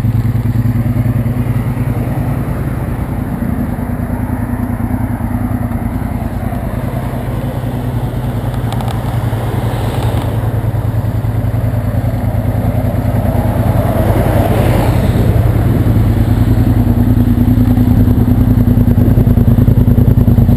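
Motorcycle engine idling steadily close by, a constant low hum with its overtones. About two-thirds of the way through, a broader swell of noise rises and fades, like a vehicle passing on the road.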